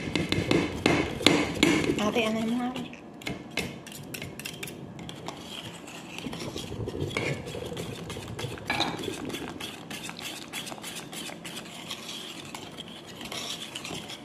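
A metal whisk and then a metal spoon stirring corn flour in a metal bowl: repeated scraping and clinking of the utensil against the bowl. It is loudest in the first three seconds, then settles into lighter, steady scraping with small clicks.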